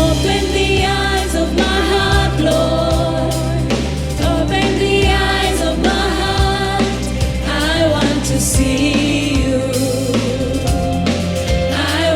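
A gospel worship song: voices singing a melody over a band with a steady bass line and drums.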